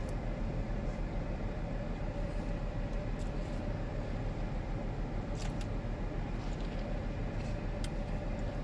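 Steady low rumble of a car idling, heard from inside the cabin, with a constant hum over it. A few faint clicks come through, about three to five seconds in and again near the end.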